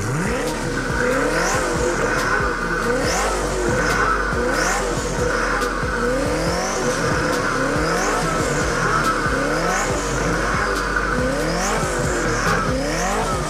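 A car engine revving up and dropping back over and over, about every second and a half, with a steady high squeal over it from about a second in until near the end.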